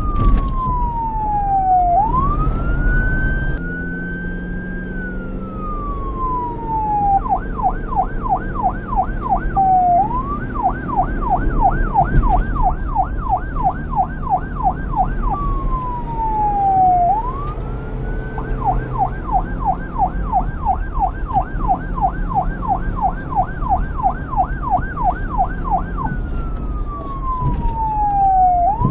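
Electronic police siren switching between a slow wail, falling and rising over a couple of seconds, and long stretches of fast yelp, with a low steady rumble underneath.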